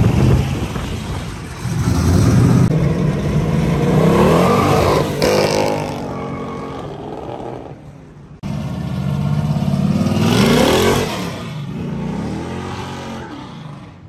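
Classic Mopar car engines accelerating away, the engine note climbing in pitch as each car revs up through the gears. The sound breaks off sharply about eight seconds in, and then another car's engine revs up twice more.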